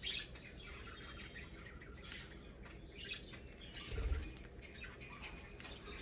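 Budgerigars pecking and picking through seeds with soft chirps, and a brief low thump about four seconds in.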